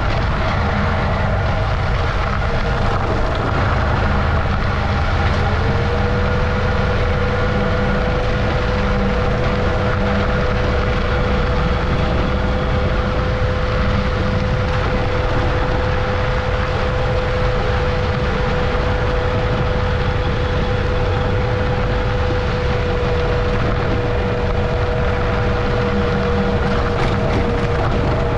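Adventure motorcycle engine running steadily while riding a dirt road, with a constant heavy rumble. About five seconds in the engine note rises, then holds at an even pitch.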